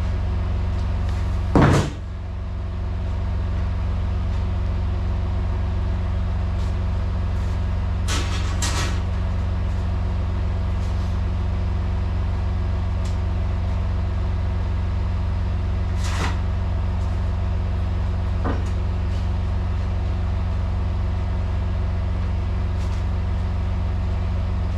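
Semi truck's diesel engine idling steadily, with a few knocks and clunks from work in the cab, the loudest about two seconds in.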